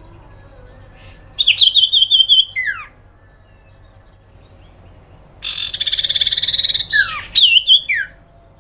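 Iora (cipoh) calling: a quick run of high notes ending in a falling whistle, then a long harsh buzzing trill, followed by more high notes that end in falling whistles.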